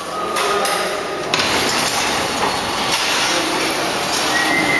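Horizontal form-fill-seal packing machine running with a steady mechanical clatter and rattle, which grows louder and brighter about a second in. A thin high whine joins it near the end.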